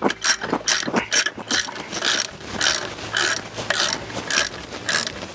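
Ratchet wrench tightening the alternator's bottom mounting bolt: repeated short strokes of pawl clicking, about two a second, spacing out toward the end.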